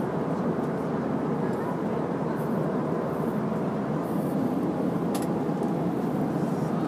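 Steady cabin noise of an airliner in flight, heard from inside the cabin: an even, unbroken rush of engine and airflow noise. A brief click about five seconds in.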